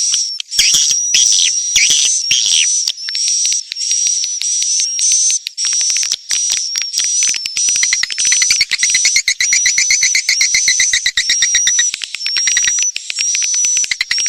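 Edible-nest swiftlet calls, a lure recording of the kind played at swiftlet houses to draw birds in: a steady run of quick high chirps, each with a thin whistle, over fast clicking twitters that grow denser about halfway through.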